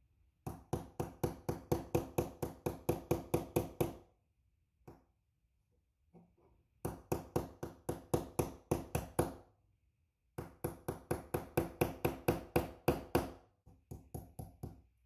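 Small hammer tapping the securing plate retaining pin into a Desert Eagle's hammer mechanism housing: three runs of quick, light, even taps, about five a second, with short pauses between, then a few scattered taps near the end.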